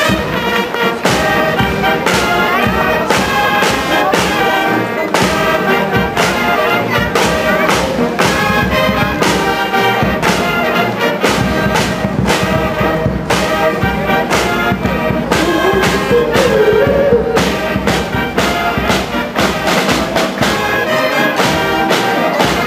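Marching brass band playing a tune over a steady drumbeat.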